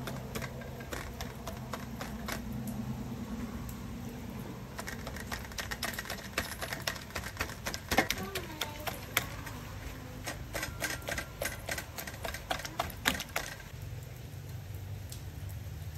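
A fork's tines rapidly and repeatedly pricking the skin of boiled pork belly on a steel tray, a quick run of sharp clicks and taps, so that the rind will puff and crisp when fried. The tapping is sparse at first, comes thick and fast through the middle, and stops about two seconds before the end.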